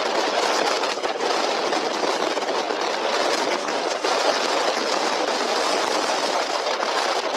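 Very strong wind rushing steadily and loudly, with no let-up.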